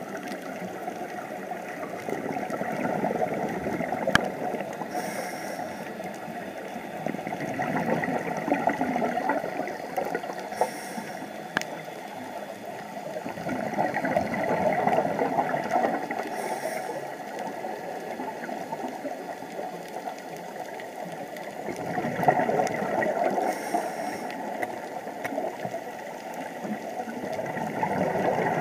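Scuba diver breathing through a regulator underwater: a short hiss of each inhalation about every six seconds, with bubbly exhalations swelling and fading between them. A couple of sharp clicks stand out, one about four seconds in and one near twelve.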